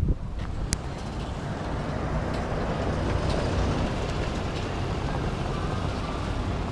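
A car passing along a paved street, its tyre and engine noise swelling to a peak around the middle and easing off.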